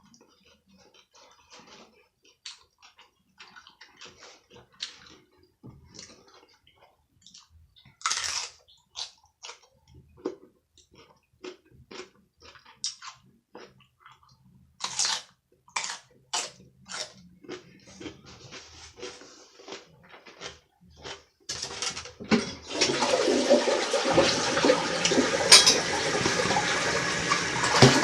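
Close-up chewing and mouth noises, irregular crunches and clicks of a person eating. About three quarters of the way through, a loud, steady rush of water with a tone in it cuts in, like a toilet flushing and its tank refilling.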